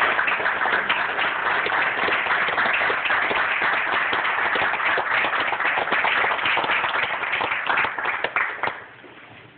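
A congregation applauding, a dense patter of many hands clapping that dies away near the end.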